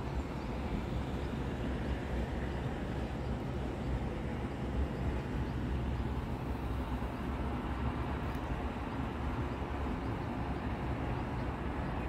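Steady low outdoor rumble with an even hiss over it and no single event standing out.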